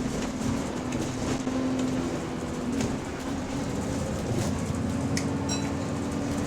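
Bus drivetrain running under way, heard from inside the bus: a steady droning whine that shifts slightly in pitch about three seconds in, over road rumble and light rattles. The whine is the subtle, odd differential noise this bus makes.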